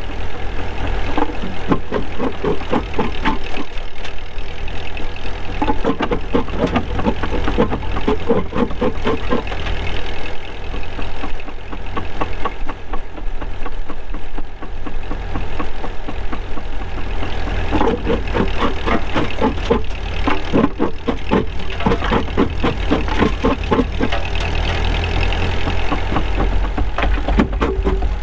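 Old flywheel jaw crusher crushing stones, with several bouts of rapid cracking and crunching rock over the steady running of the tractor engine that drives it by belt.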